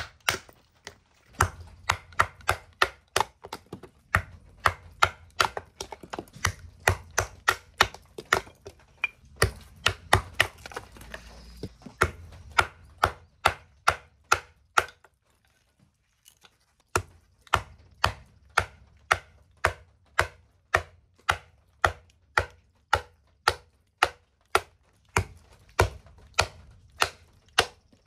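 Knife chopping food on a cutting board in a steady run of quick strokes, about three a second, with a short break around the middle.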